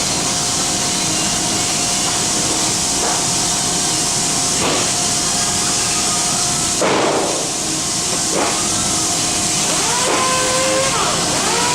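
Steady hiss of a paint spray gun's compressed air spraying base coat, with a thin steady whistling tone under it and a few brief louder gusts of air.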